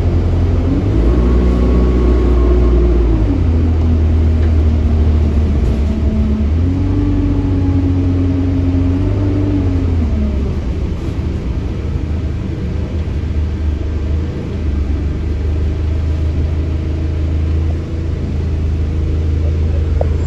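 Bus engine and drivetrain heard from inside the passenger saloon while the bus is under way: the note rises as it accelerates about a second in, holds, drops, then climbs again about six seconds in before easing back to a steadier, lower run.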